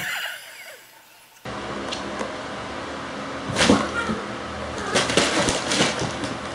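Cats scuffling and wrestling on a wooden floor, with scattered thumps and scrabbling of paws against a steady background hum. A noisy jolt at the very start marks a startled cat bolting.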